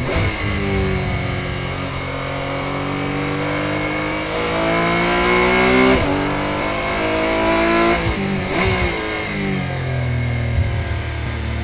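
Porsche 718 Cayman GT4 Clubsport's flat-six racing engine heard from inside the cabin, revving up hard in third gear with a rising pitch and a quick upshift about six seconds in. It pulls up again, then the pitch falls under braking, with downshift blips around eight to nine seconds in, before settling into a steadier, lower note in second gear.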